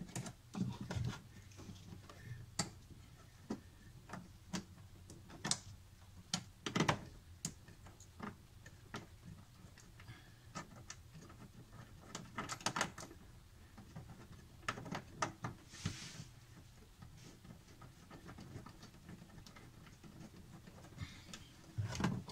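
Scattered small clicks, taps and light rattles of hands handling hoses and metal hose clamps, with a brief rustle about two-thirds of the way through.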